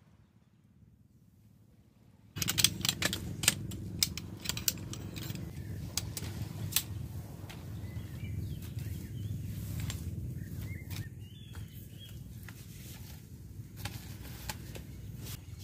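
Folding camp chair being assembled: sharp clicks and rattles of its jointed metal poles snapping together, thickest in the first few seconds after the sound starts about two seconds in, then rustling as the fabric seat is pulled onto the frame, over a low steady rumble.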